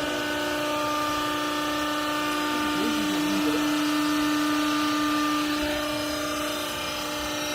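Hydraulic cloth baler's motor and pump running with a steady hum, its level easing slightly about five and a half seconds in.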